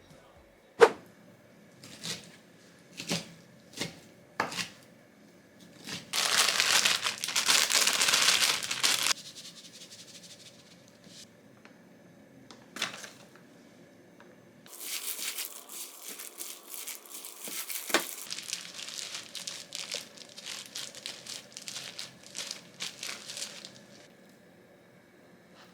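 Plastic packaging or wrapping being handled: a few sharp clicks and knocks, then crinkling and rustling in two stretches, the first and loudest lasting about three seconds, the second longer and softer.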